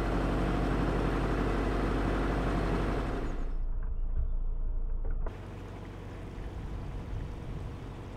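Narrowboat's diesel engine running steadily under way, an even low drone. Just past the middle it sounds muffled for a moment, and from about five seconds in it is quieter.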